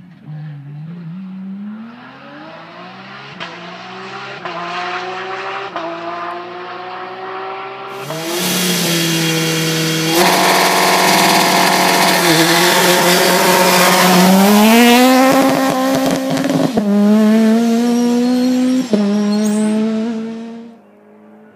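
Rally car engines at full throttle, rising in pitch and dropping back at each upshift as they pull up through the gears. The loudest part, in the middle, is a rally car revving hard at close range at the stage start; the sound cuts off abruptly shortly before the end.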